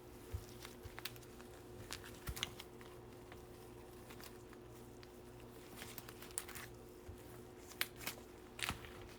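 Baseball cards in plastic penny sleeves and toploaders being handled and set down: faint crinkles and light plastic clicks at irregular moments, over a steady low hum.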